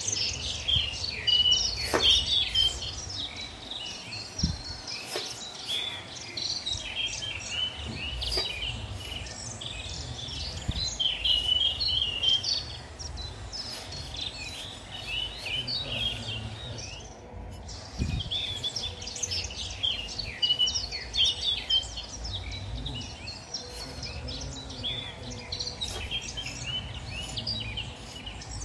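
Small birds chirping, many short high calls running on, with a brief break about seventeen seconds in.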